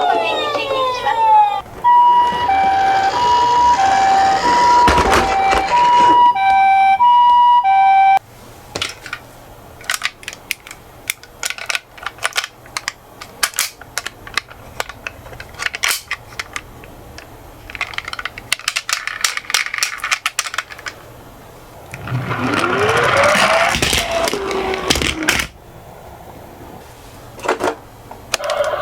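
Two-tone ambulance siren alternating between a high and a low note, after a falling wail at the start, lasting until about eight seconds in. Then light clicking and rattling of toy minicars rolling down a slope, with a louder clattering patch about three-quarters of the way through.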